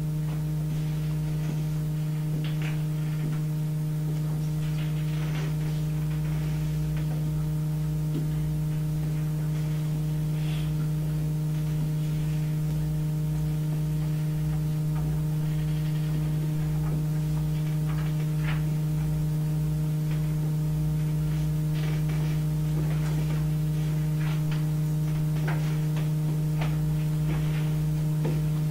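A steady low hum with several fainter higher overtones over an uneven low throb, and faint scattered ticks and rustles.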